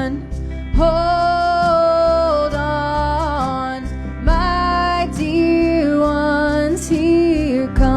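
Live band music: a melody of long held notes over a steady bass line and drum hits.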